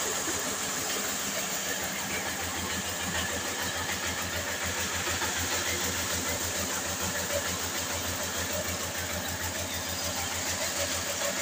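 A 24-inch atta chakki (stone flour mill) running, driven through a flat belt by a 10 HP electric motor: a steady mechanical running sound with a fast, even low throb and a high hiss.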